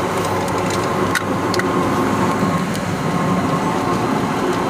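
Steady hum of a car's engine and road noise heard from inside the moving car.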